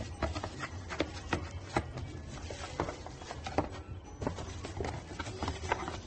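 Cardboard box and bubble-wrap packaging handled by hand, with irregular crinkles, taps and knocks.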